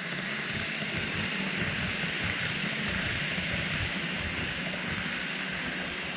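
KATO N-gauge E257 series 2000 model train running past on the track: a steady rolling hiss of its wheels on the rails with a low motor hum, starting abruptly as it comes by.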